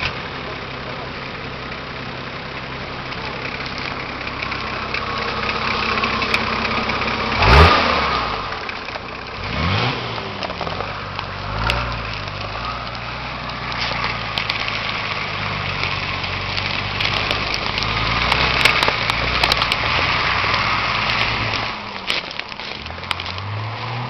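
Nissan Patrol GR Y60's engine idling, then revved hard about seven and a half seconds in, the loudest moment, and twice more soon after. It then runs on under load with revs rising and falling, and revs once more near the end.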